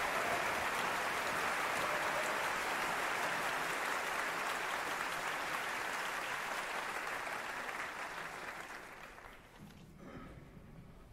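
Audience applauding steadily for several seconds, then dying away near the end.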